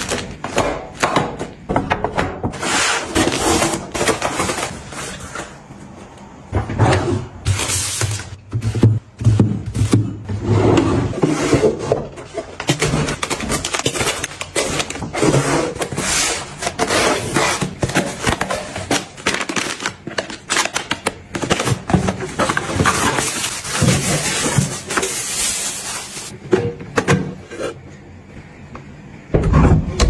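Close-up handling sounds of household packing: plastic-wrapped tissue packs crinkling and tapping as they are set into a metal tin, a cardboard box being handled, and a drawer pulled open. It is an uneven run of taps, scrapes and crinkles.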